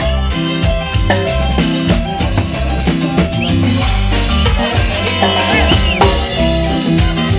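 Live band playing an upbeat salsa-style chorus, heard close up at the drum kit: sharp stick strokes on drums and timbales over a moving bass line, with some sliding melodic notes higher up partway through.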